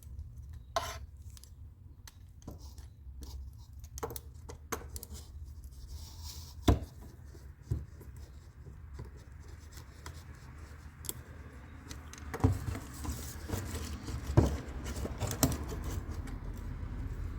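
Metal clicks, clinks and scraping from a bent, seized car door latch linkage being worked back into place, with a sharp knock about seven seconds in and the loudest knock about fourteen seconds in.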